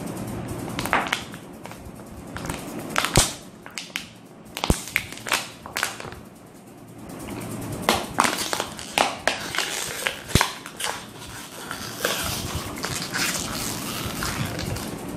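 Clear plastic water bottle being twisted and crushed by hand, crackling throughout with a few loud sharp snaps, the loudest about three seconds in.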